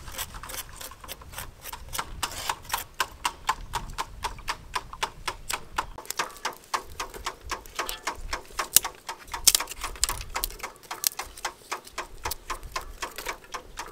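Dry twigs burning in a clay stove, crackling with irregular sharp snaps and pops, a few each second, the loudest a little past the middle.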